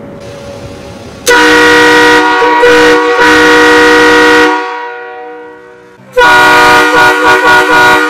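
Air-powered train horns, a four-trumpet Loudmouth kit, sounding two very loud blasts: a chord of several steady tones starting about a second in and dying away around four and a half seconds, then a second blast at about six seconds that stutters on and off near the end.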